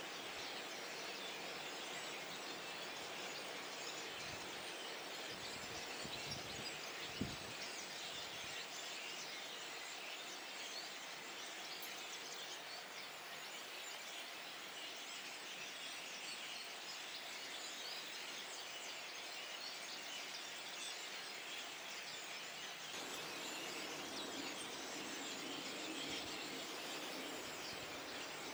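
A flock of starlings chattering: a dense, continuous mass of overlapping chirps, clicks and whistles. A single brief knock is heard about seven seconds in.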